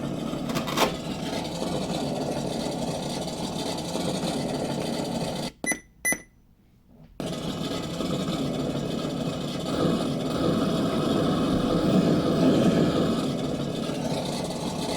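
RC crawler's engine sound kit playing a simulated running engine through its small speaker. About five and a half seconds in it cuts out for over a second, with two short electronic beeps, then starts up again.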